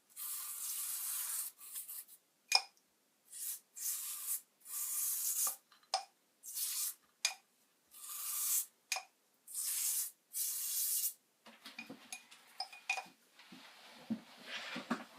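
Repeated rubbing strokes, each about half a second to a second long with short pauses between, like something being rubbed or sanded by hand. From about eleven seconds in they give way to small clicks and knocks of parts being handled.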